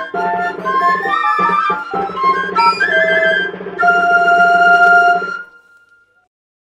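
Ensemble of txistus, Basque three-holed pipes, playing a tune in several parts over a low sustained line. It ends on a long held final note a little over halfway through, which then dies away.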